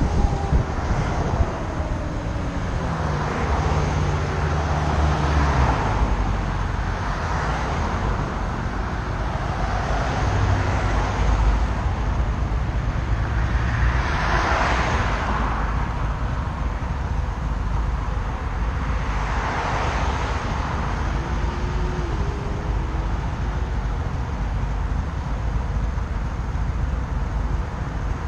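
Wind and road noise from a Harley-Davidson LiveWire electric motorcycle slowing down, with a falling whine from its electric motor in the first few seconds. After that comes traffic noise at an intersection: cars pass every few seconds over a low engine rumble from the motorcycles waiting alongside.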